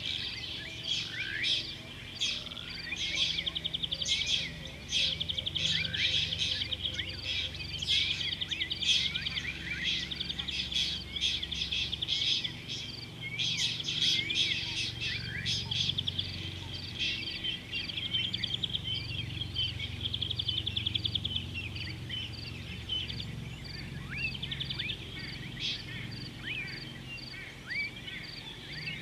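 Several wild birds calling together in African bush: chirps and a fast trill through the first half, then a single high note repeated about twice a second, over a steady low hum.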